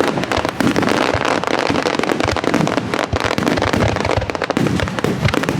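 Aerial fireworks bursting almost directly overhead: a dense, continuous crackle of many small reports in quick succession.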